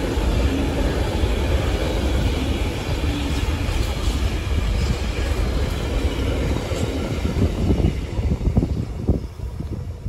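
Container freight train's wagons rolling past on steel rails, a steady low rumble of wheels. Near the end the last wagons go by with a few sharp wheel knocks and the noise falls away.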